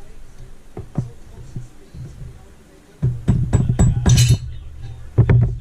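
Metal knocks and clinks as the cylinder is worked off a Honda CRF450 engine. About three seconds in comes a loud run of clattering strikes with a brief scrape, over background music.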